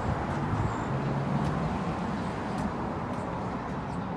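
Road traffic noise with a passing vehicle's engine hum that fades after about two seconds.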